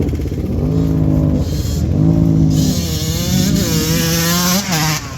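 ATV engine revving up and down in repeated surges, about one a second, through deep mud. A rushing hiss joins in over the last two seconds.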